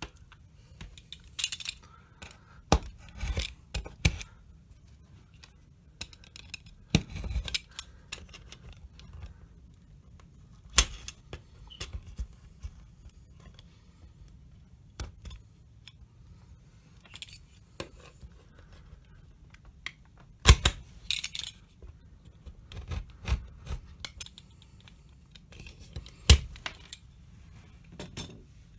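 Small hand-tool work on a model railway layout: scattered sharp clicks, light scrapes and small metallic clinks at irregular intervals, a few louder knocks among them, as a tool works the dried filler between the track.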